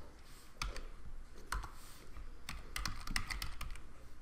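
Typing on a computer keyboard: a few scattered keystrokes, then a quicker run of key clicks from about two and a half seconds in.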